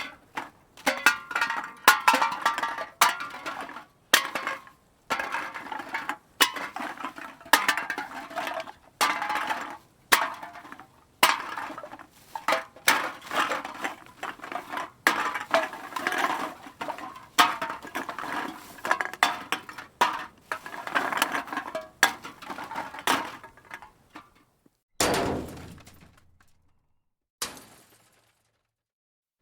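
A series of crashes of hard, brittle objects breaking and clattering, each with a clinking, ringing tail, coming about once a second. The crashes stop near the end, leaving two fainter single hits.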